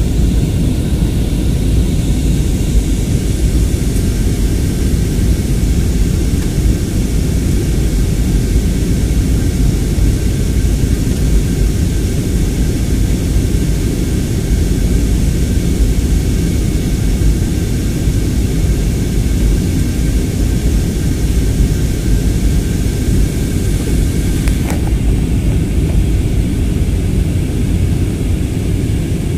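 Steady cabin noise of a jet airliner in flight: engines and rushing air, heaviest in the low end, with a faint steady whine above.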